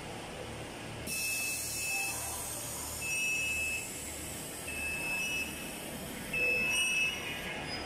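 Snack production line machinery running in a factory hall, with a steady low pulsing hum. A hiss starts about a second in, and short high tones repeat about every one and a half to two seconds, four times.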